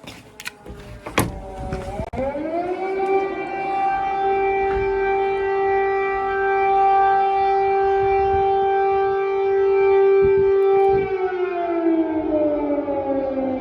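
City air raid siren warning of a possible drone or missile attack. The siren winds up about two seconds in, holds one steady wailing tone, and begins to wind down near the end. A few sharp knocks come in the first two seconds.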